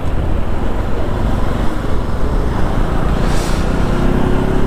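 Riding a motorcycle on a highway: steady wind rumble on the microphone mixed with engine and road traffic noise. A steady engine drone comes up and rises slightly near the end.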